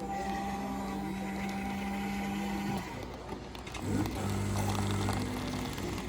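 A steady motor hum that cuts off about halfway through, then starts again at a lower pitch about a second later.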